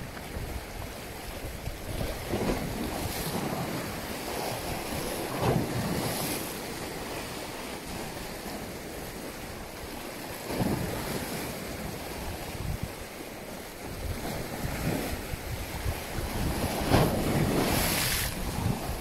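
Sea waves washing in irregular swells every few seconds, the biggest near the end, with wind rumbling on the microphone.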